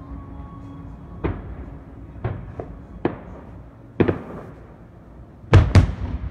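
Aerial firework shells bursting: a string of sharp bangs about a second apart, the loudest two in quick succession near the end.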